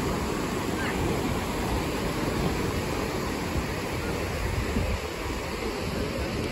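Ocean surf washing onto a sandy beach, a steady rushing noise, with wind buffeting the microphone.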